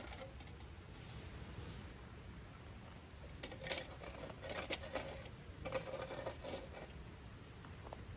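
Light clicking and rustling in three short bursts in the second half, like objects being handled, over a faint steady low background noise.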